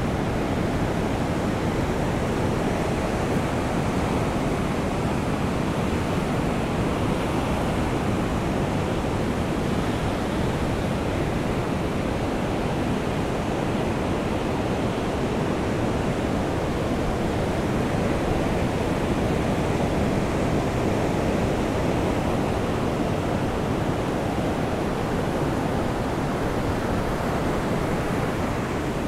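Steady, unbroken wash of ocean surf and falling rain on a sandy beach.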